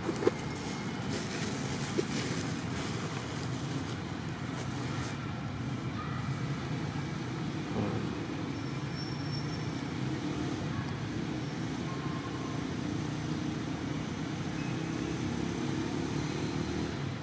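Steady low rumble of a distant engine, with a sharp click about a quarter of a second in and a fainter one about two seconds in.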